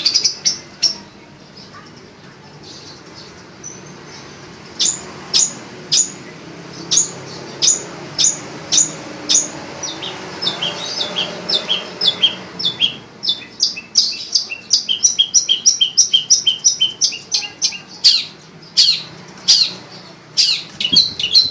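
Pet songbird chirping: after a brief lull, a run of short, high chirps that each drop in pitch, at first about one a second and then quickening to several a second.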